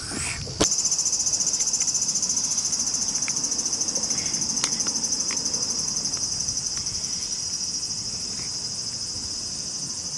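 Insects buzzing steadily at a high pitch, starting abruptly about half a second in and easing slightly near the end, with a few faint clicks.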